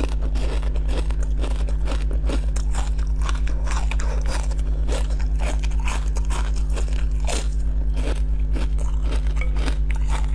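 Close-up biting and chewing of a frozen, ice-crusted ball-shaped sweet: many quick, irregular crunches of the icy shell being broken between the teeth. A steady low hum runs underneath.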